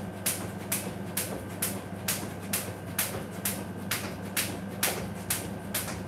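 Jump rope ticking sharply on a tiled floor with each turn, about twice a second in an even rhythm, over a steady low hum.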